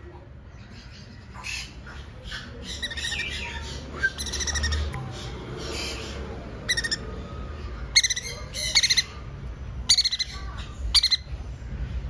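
Green-cheeked conure chicks calling: a run of short, shrill squawks, coming faster and louder in the second half.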